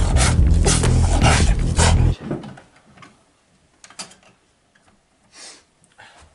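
A small dog barking in repeated short sounds over a low rumble, cutting off suddenly about two seconds in; after that only a few faint knocks and taps.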